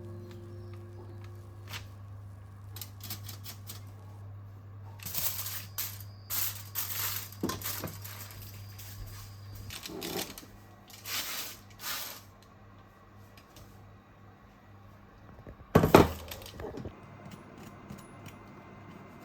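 Short bursts of household handling noise, such as things being moved or packaging handled, over a low steady hum that stops about ten seconds in; the loudest burst comes near the end.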